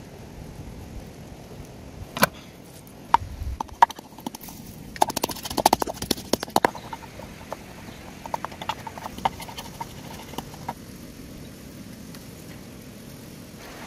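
Wooden pestle pounding garlic in a wooden mortar: irregular knocks, a few spread out at first, then a quick run of strikes about five seconds in, thinning out after about eleven seconds.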